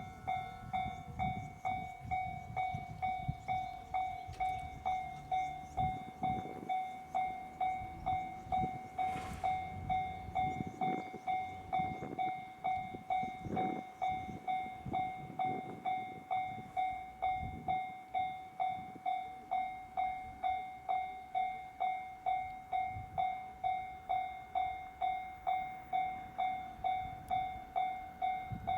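Japanese level-crossing warning bell ringing steadily, an evenly repeating electronic ding, while a train runs over the crossing with rumble and wheel clatter on the rails, heavier in the first half.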